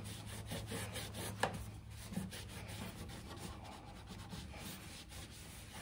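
Microfiber cloth rubbing back and forth over the painted steel door of a 1968 Ford Mustang, wiping off cleaner and grit, with a single light knock about a second and a half in.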